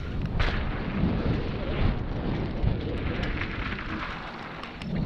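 Mountain bike riding down a wet dirt trail: a low, steady rumble of tyres and wind buffeting the microphone, with scattered clicks and knocks from the bike over bumps.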